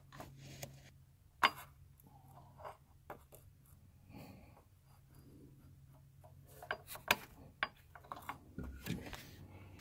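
Scattered light metallic clicks and taps of needle-nose pliers and a long mounting bolt being worked into place among the engine's pulleys, over a faint steady hum. The taps come singly at first and cluster more closely near the end.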